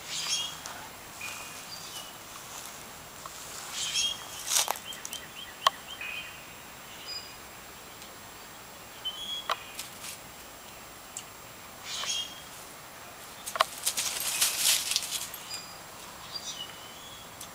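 Short, high-pitched chirps from small animals, coming in scattered clusters every few seconds, with a few sharp clicks and a brief noisy scuffle about fourteen seconds in.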